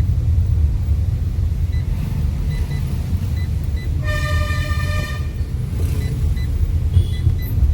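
Steady low rumble of a Fiat Linea driving, heard inside the cabin. About halfway through, a vehicle horn sounds one steady note for just over a second.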